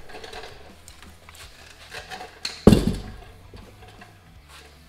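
Engine cylinder head lifted off the block and set down on a concrete floor: a few small metal clanks, then one heavy thud just past halfway.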